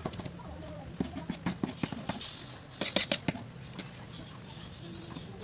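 Chef's knife scraping and tapping on a wooden cutting board as diced onion is gathered up and pushed onto a plastic plate. Scattered sharp clicks, with a denser cluster about three seconds in.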